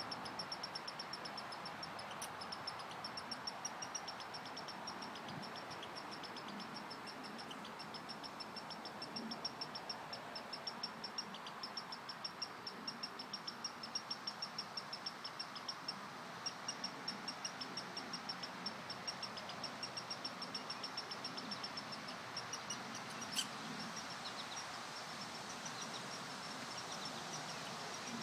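High-pitched chirps repeating rapidly and evenly, several a second, with a few short pauses, over a soft background hiss; a single sharp click about 23 seconds in.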